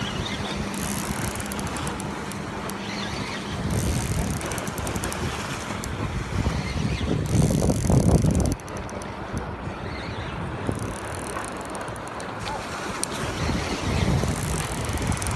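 Shimano Stella spinning reel being cranked to retrieve a lure: a fast run of fine, even clicks that comes and goes in several spells. Wind rumbles on the microphone throughout and swells about eight seconds in.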